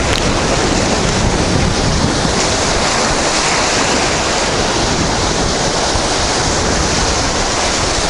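Heavy storm surf breaking continuously, a steady loud wash of waves and whitecaps.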